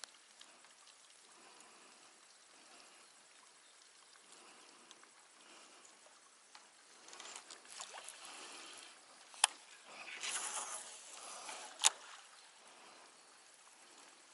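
Faint trickling water, then past the middle a baitcasting rod and reel in use: a sharp click, a short whirr of line coming off the spool, and a second sharp click.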